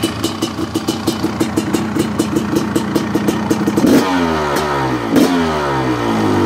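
Honda CR500 two-stroke single-cylinder dirt bike fitted with a Pro Circuit expansion-chamber pipe and 304 silencer, idling with a rapid crackling pop from the exhaust. Near the middle the throttle is blipped twice, about a second apart, and the revs fall back toward idle after each blip.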